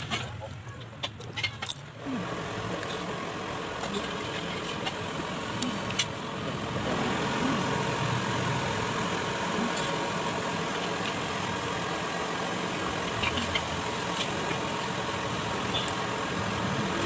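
Fried rice with chicken liver stir-frying in a pan: a steady sizzle that sets in about two seconds in, with scattered clicks of a spatula and a low hum underneath.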